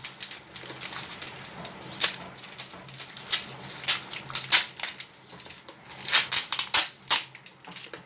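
Hands handling plastic packaging: the clear plastic wrap around a row of air-dry clay packs crinkles while small plastic slime tubs are picked up and set down. It comes as a string of short, irregular crackles and clicks, busiest about two-thirds of the way through.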